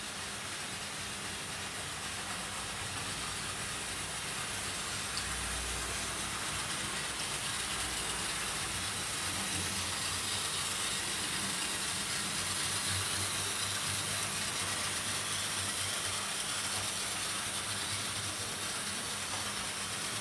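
OO gauge model trains running: a steady whir of small electric motors and the rumble of metal wheels on rail, with a hiss over it. It grows a little louder in the middle and eases off near the end.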